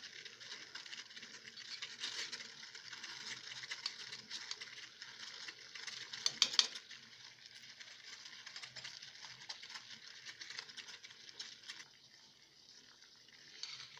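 Crushed garlic in oil sizzling with fine crackles as the oil heats in a water bath and begins to bubble, with a sharp clink about six and a half seconds in. The sizzle grows quieter near the end.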